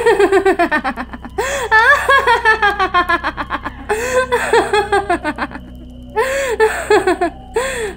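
A woman's mocking laugh, acted: quick runs of high ha-ha pulses that fall in pitch, in several bursts with short breaks between.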